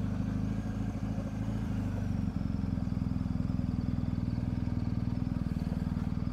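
BMW R1250GS Adventure's boxer-twin engine running steadily as the motorcycle rolls slowly along a dirt track.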